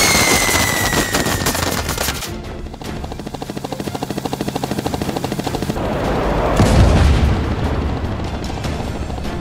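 Dubbed automatic-gunfire sound effects over action music: dense shots at first, then a fast, even machine-gun rattle, and a boom about seven seconds in.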